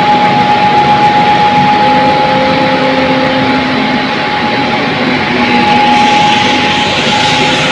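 Small rice huller running steadily as paddy feeds down from its hopper to be husked, with a constant whine over a grainy rushing noise.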